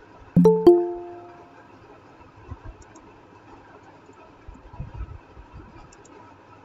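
Google Meet notification chime: two quick bell-like notes about half a second in that ring out over about a second, signalling that someone is asking to join the meeting. Faint hiss and a few soft knocks follow.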